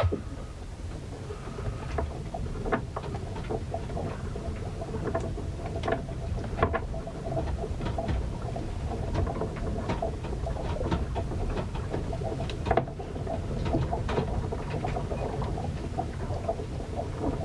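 Ship riding out a storm: a steady low rumble of wind and water against the hull, with frequent small creaks and clicks. A sharper knock comes right at the start and another about 13 seconds in.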